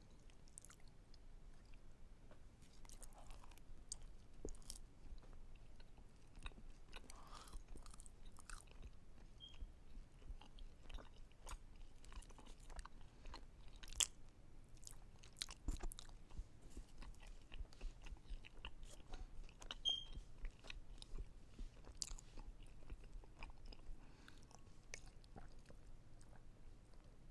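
Close-miked chewing and wet mouth sounds of someone eating, with many irregular sharp smacks and clicks, two of them louder about halfway through and again later.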